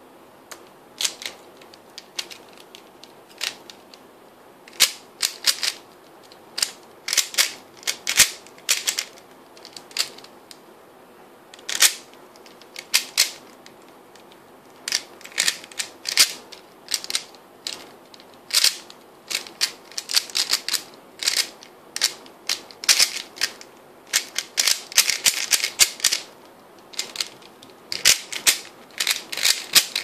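3x3 Rubik's cube being turned fast in a speedsolve: sharp plastic clacks of the layers snapping round, in quick runs broken by brief pauses. The turning starts about a second in.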